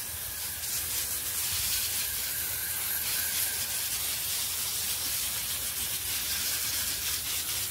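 Fine spray of water hissing steadily as it mists down over garden plants.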